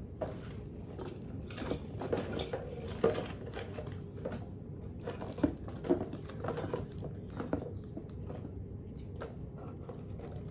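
Fidget toys being handled and set down: irregular light clicks and clatters of small hard objects, scattered through the whole stretch.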